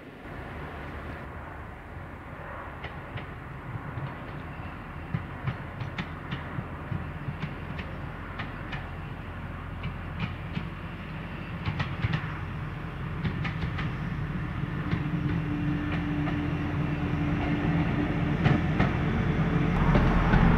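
North Eastern Railway 1903 Autocar railcar running along the line, its engine's steady low hum and its wheels clicking over the rail joints growing steadily louder as it draws closer.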